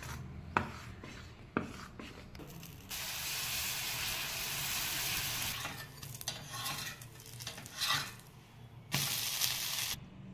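A spoon stirring thick dosa batter in a steel bowl, clicking and scraping. Then dosa batter sizzling on a hot tawa, the sizzle starting and stopping abruptly twice.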